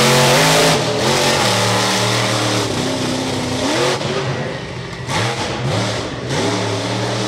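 Bigfoot monster truck engine revving in repeated bursts, its pitch climbing and falling several times, loudest right at the start.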